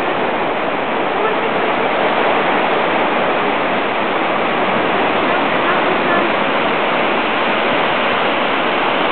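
Water from the infinity pool spilling over its edge: a steady, even rush of running water.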